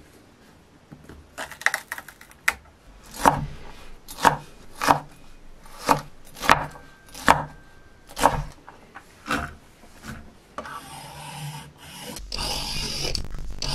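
Knife chopping vegetables on a cutting board: single sharp chops spaced about half a second to a second apart, then a continuous scraping across the board that grows louder near the end.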